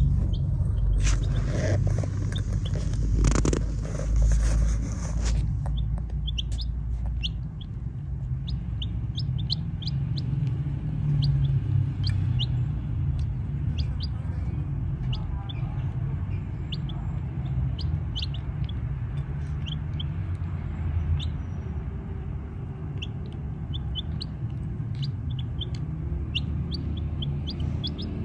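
Baby chicks peeping: short, high cheeps scattered throughout, at times several a second, over a steady low rumble. A noisier rustling stretch runs through the first five seconds or so.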